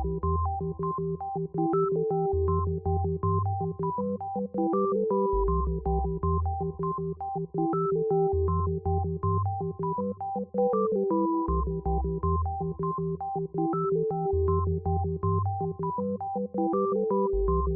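Background music: an electronic synthesizer track with a pulsing bass line and a short repeating keyboard melody.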